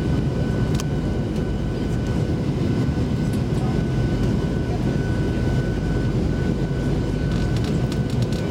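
Steady cabin noise inside a Boeing 737-700 on approach to landing, heard from a seat over the wing: a low rumble of the CFM56-7B engines and airflow, with a thin steady whine above it.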